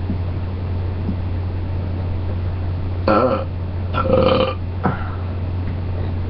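A person burping: two loud burps about three and four seconds in, then a short third one, over a steady low hum.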